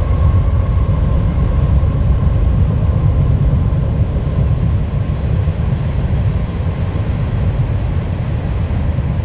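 Wind buffeting a chest-mounted action camera's microphone: a loud, steady low rumble.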